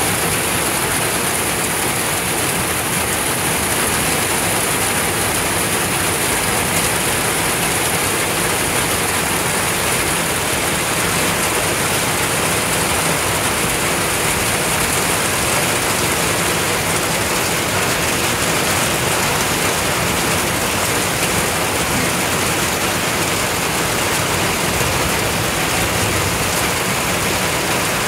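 Heavy rain pouring steadily during a thunderstorm, a dense, even hiss and patter of drops.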